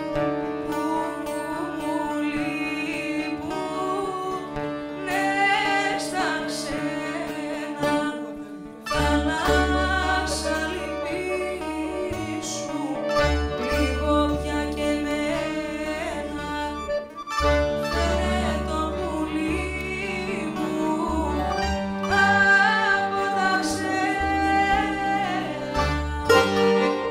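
A woman singing a slow traditional Asia Minor Greek song, accompanied by a small live band of bouzouki, baglama, accordion, guitar and double bass. The music dips briefly just before the bass notes grow stronger about nine seconds in.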